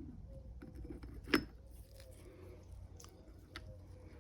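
Faint small metal clicks and one sharper clink a little over a second in, as the K-series transmission's second gear is slid onto the shaft and its tangs are lined up with the synchro, over a low steady hum.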